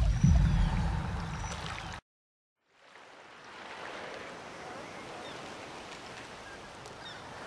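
A loud low rumble for about two seconds that cuts off abruptly, then, after a moment of silence, a faint steady rushing noise.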